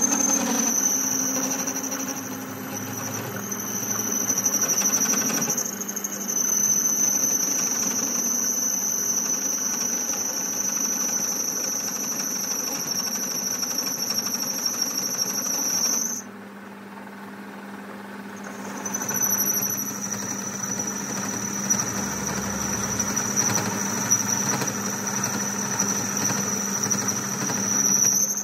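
Workshop machine running with a steady high-pitched squeal over a low hum; the squeal stops about sixteen seconds in and comes back about three seconds later.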